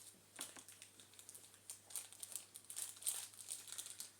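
Crinkling and rustling of something being handled, a run of small irregular crackles.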